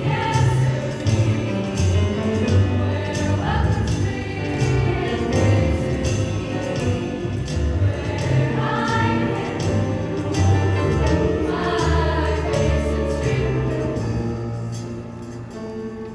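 High school a cappella choir singing, with a low bass part under the upper voices and a steady beat of short, sharp hits about twice a second. It gets a little quieter near the end.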